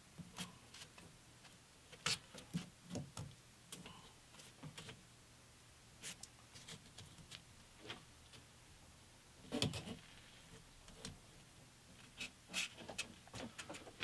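Faint, scattered taps, scrapes and rustles of hands pressing and sliding 150-grit paper-backed sandpaper around the drum of a drum sander, working the belt tight to take up its slack. There is a slightly louder cluster of scrapes about two-thirds of the way through.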